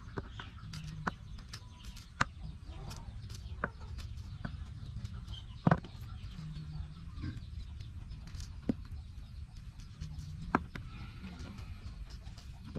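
Hand julienne peeler scraping through vegetable slices, with about six sharp clicks, the loudest near the middle. Chickens cluck now and then in the background.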